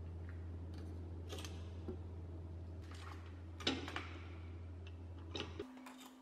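Scattered light clicks and knocks of a metal LED light bar, its bracket and cable being handled and positioned, over a steady low hum that cuts out shortly before the end.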